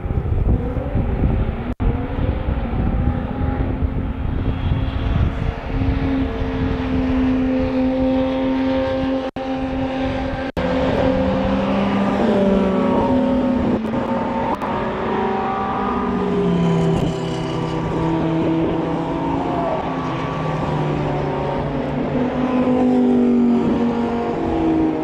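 Several supercars racing around a circuit, their engines running hard with several overlapping tones rising and falling in pitch as they pass. Wind buffets the microphone in the first few seconds.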